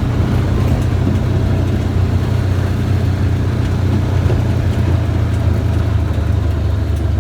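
Vehicle engine running in a steady low drone while driving slowly over a rough dirt road, with road noise.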